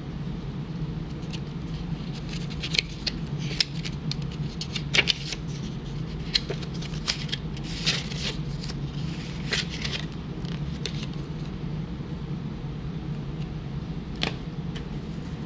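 Pages of a small paper instruction booklet being handled and flipped, giving a run of crisp rustles and snaps, with one more near the end. A steady low hum sits underneath.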